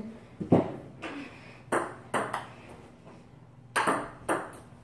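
Table tennis rally: the celluloid ball clicking off paddles and the table, about six sharp hits, several coming in pairs about half a second apart.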